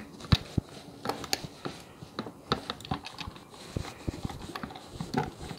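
Irregular light clicks and knocks of small metal parts of a model steam locomotive, its brass boiler and frames, being handled, shifted and taken apart on a table; the sharpest click comes about a third of a second in.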